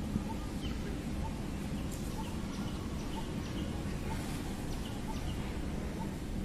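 Faint, short bird chirps repeating about twice a second over a steady low rumble.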